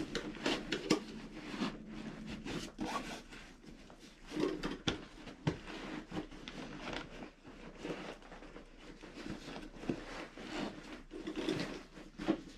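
Irregular rustling, rubbing and light knocks, short and uneven, with no steady rhythm.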